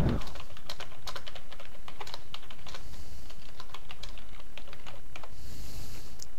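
Typing on a computer keyboard: a quick, uneven run of key clicks that stops about five seconds in, over a steady low hum.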